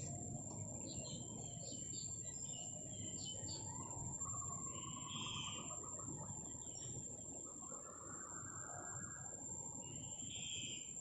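Outdoor rural ambience: a steady high-pitched insect drone, with scattered chirping animal calls coming and going, over a low rustling noise.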